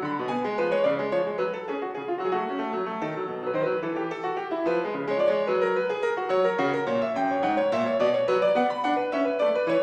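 Grand piano played solo, a steady stream of quick notes in a classical piece.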